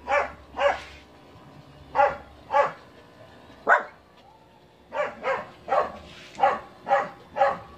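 A dog barking repeatedly: about a dozen short barks, with a pause of about a second near the middle.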